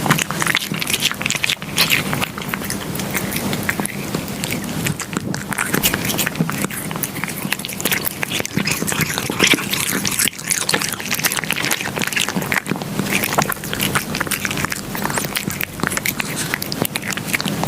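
A cat eating close to the microphone: a steady, dense run of small chewing and crunching clicks.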